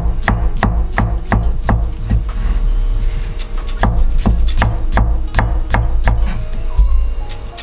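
Kitchen knife chopping shiitake mushroom stems on a cutting board: steady, crisp chops about three a second, with a short pause near the middle before they resume.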